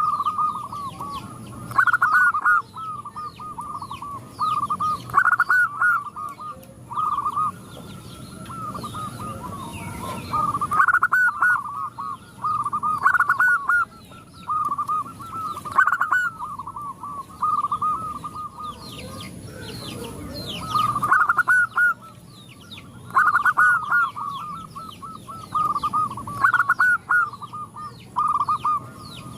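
Several zebra doves cooing: quick staccato runs of notes, repeated every couple of seconds and often overlapping one another.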